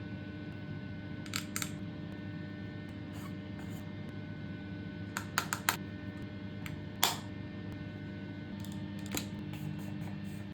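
Scattered sharp clicks and taps, a few at a time, over a steady low hum of room noise.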